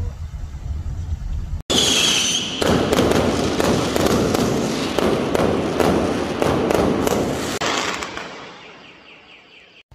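Low road rumble inside a moving car. It cuts off abruptly, and aerial fireworks go off: a brief high whistle, then several seconds of dense crackling and popping that fades away near the end.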